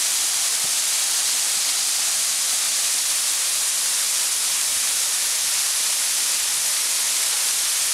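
Waterfall of about 40 to 50 feet, water pouring down onto rock: a steady, loud rushing hiss with no change.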